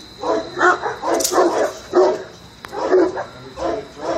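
Five-month-old Cane Corso puppy barking again and again, about two barks a second: an alert bark at a person standing still, as in protection training.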